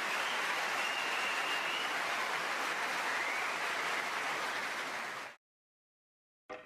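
Snooker crowd applauding a shot, a steady wash of clapping that cuts off suddenly about five seconds in.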